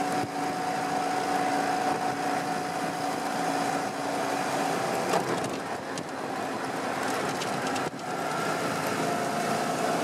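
Vintage Willys Jeep driving at a steady pace: a steady engine drone under the rush of wind and tyre noise in the open-topped cab, briefly dipping about eight seconds in.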